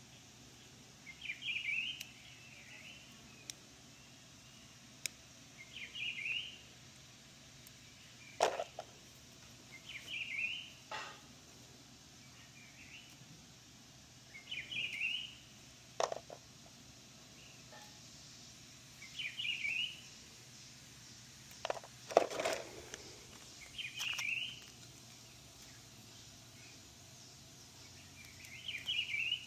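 A songbird repeats the same short, chirpy song phrase about every four to five seconds. A few sharp clicks or knocks come between the songs, and these are the loudest sounds.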